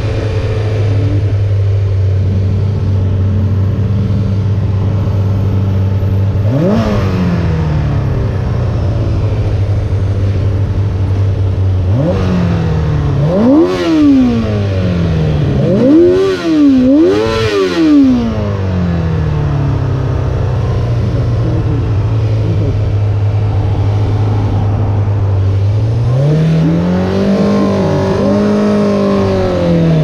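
Honda CBR600F4's inline-four engine heard from the rider's seat, holding a steady note. It rises sharply once about seven seconds in, then swings up and down several times around the middle, and climbs again near the end.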